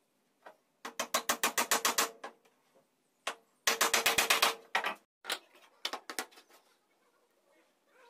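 A hammer tapping on a small wooden frame in quick runs of about nine blows a second, two runs of about a second each, then a few slower separate taps.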